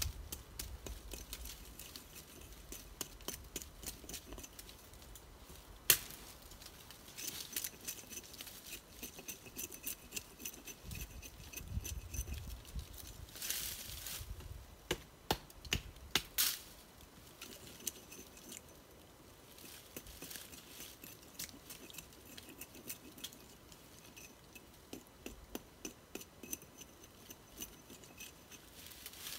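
Footsteps crunching and scuffing on rocky, gritty ground while climbing a steep slope, with irregular clicks and scrapes of stones and gear. A sharper knock comes about six seconds in.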